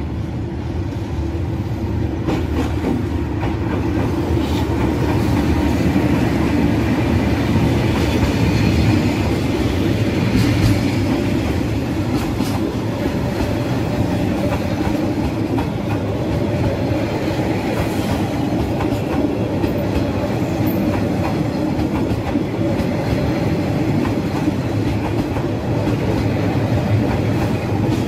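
Vietnam Railways SE22 passenger train, hauled by D19E and D13E diesel locomotives, passing close by. The sound grows louder over the first several seconds as the locomotive comes past, then the coaches roll by with their wheels clicking over the rail joints.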